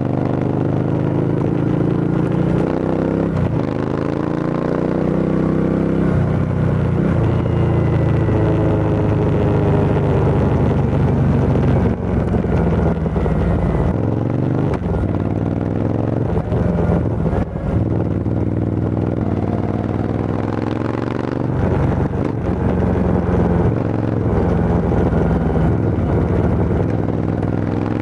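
Motorcycle engine through an aftermarket Arrow full exhaust system with the dB killer removed, revving repeatedly. Its pitch climbs and drops back several times.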